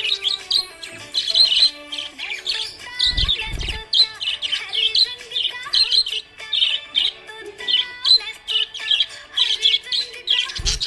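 Budgerigar chirping in quick, repeated high chirps, a few each second, a happy-sounding chatter. A low thump comes about three seconds in, and another near the end.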